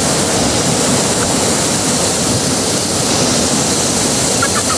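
Steady rushing of a nearby mountain stream, with faint voices briefly near the end.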